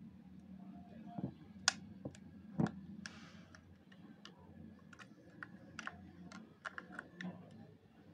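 Scattered light clicks and taps of the small plastic and metal parts of a professional hair clipper being handled and fitted back together by hand, the two loudest about one and a half and two and a half seconds in, with a brief scrape just after.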